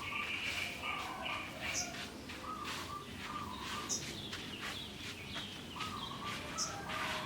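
Birds calling: many short repeated chirps, with a brief higher note every two to three seconds.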